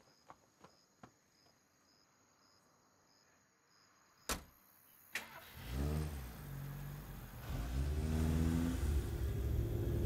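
A few light footsteps, then two sharp knocks a little after four and five seconds in, followed by an engine starting and running, growing louder toward the end.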